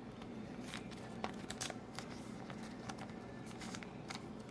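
Faint clicks and rustles of trading cards and their packaging being handled, over a low steady hum.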